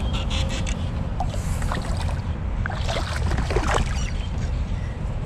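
Wind rumbling on the microphone alongside the kayak, with scattered small splashes and drips of water, the loudest cluster about three seconds in.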